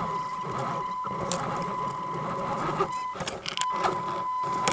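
Electric drive motor and gears of an RC truck whining steadily at one pitch over a low hum, heard from a camera riding on the truck. Past the middle the whine breaks off briefly among clicks and scraping, then comes back.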